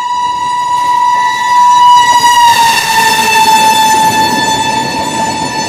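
Indian Railways WAP-7 electric locomotive's horn held in one long, steady blast as the train approaches and passes. The pitch drops slightly about halfway through as the locomotive goes by, and the rumble of the train grows beneath it.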